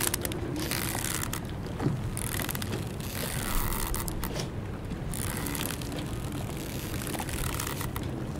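Strong wind gusting over moored sailboats, with waves slapping against the hulls, mooring ropes creaking and squeaking under strain, and scattered clicks and a knock from the boats' fittings. A steady low rumble from the wind runs underneath, with hissing gusts that swell and fade every second or two.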